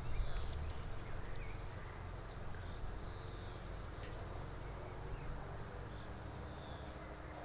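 Birds calling: a short falling call repeated about every three seconds, with other faint chirps, over a low steady rumble.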